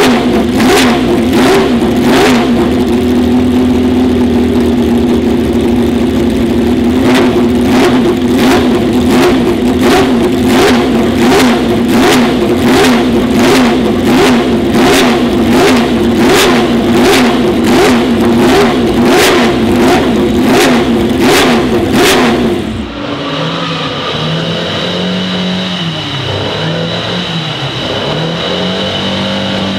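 Ferrari 312PB's 3.0-litre flat-12 racing engine running at a held fast idle during warm-up, with a regular pulse about twice a second. About 23 seconds in it drops to a lower, uneven idle that rises and falls.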